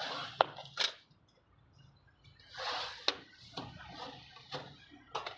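A hard gypsum ceiling tile being handled and trimmed at its edge: two scraping swishes and several sharp clicks and knocks against the plaster slab.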